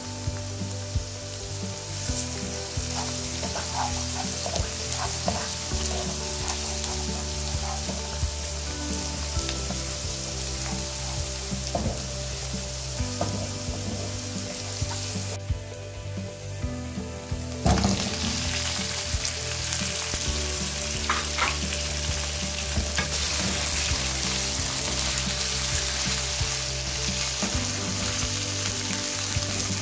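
Chopped onions and garlic frying in hot oil in a non-stick karahi, a steady sizzle with a wooden spatula scraping and stirring through it. A thump comes a little past halfway, and the sizzling is louder after it.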